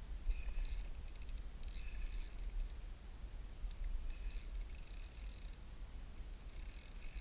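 Fishing reel being cranked in short bursts, four turns of about a second each, its gears giving a fine rapid ticking whir. A low wind rumble on the microphone underneath.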